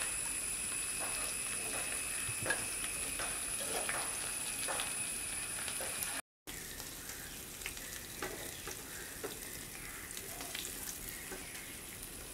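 Oil sizzling steadily in a frying pan of fried chicken pieces, with light clicks of a metal slotted spoon against the pan as the pieces are lifted out. There is a brief dropout about halfway, after which the sizzle is a little quieter.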